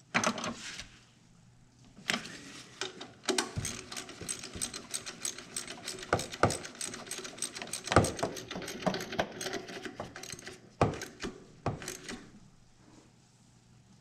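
Hand ratchet clicking rapidly as a motor mount bolt is run in, with a few louder knocks in between.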